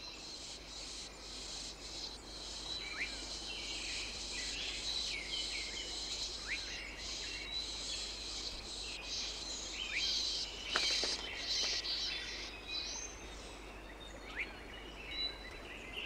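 Forest ambience: many small birds chirping and twittering over a steady high insect tone, with a few quick whistled glides scattered through.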